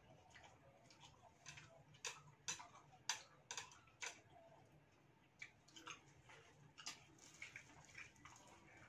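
Faint eating sounds: irregular small clicks and crunches of fried mantis shrimp being peeled by hand and chewed, with chopsticks clicking on dishes. The sharpest clicks come about two to four seconds in.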